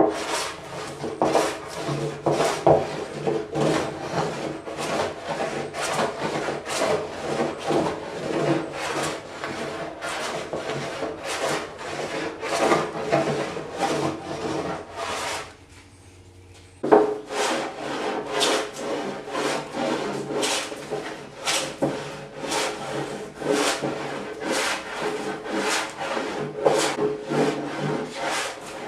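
Stanley hand plane shaving a cypress slab, about two quick scraping strokes a second, with a short pause about sixteen seconds in before the planing resumes.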